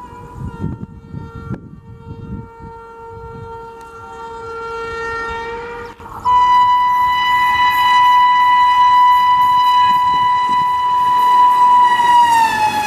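Indian Railways electric locomotive's air horn sounding as a train comes through at speed: a lower-pitched blast for about six seconds, then a loud higher-pitched blast held for about six more, its pitch dropping near the end as the locomotive passes.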